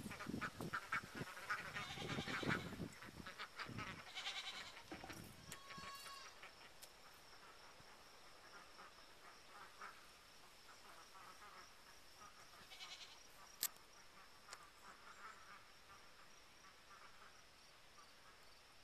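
Swedish Blue and Indian Runner ducks quacking in quick runs of calls over the first several seconds, then a faint steady insect buzz with one more short burst of calls and a single sharp click later on.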